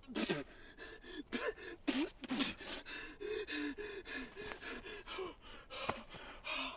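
A man breathing in quick, shaky gasps, with short huffs that carry a little voice, two or three a second, as he shivers with cold.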